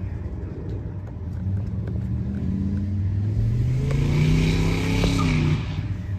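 A car engine accelerating, its note climbing and growing louder for about four seconds, then dropping away abruptly near the end.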